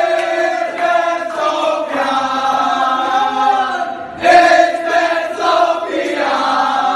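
A large crowd of football supporters singing a chant together in unison, growing louder a little past the middle.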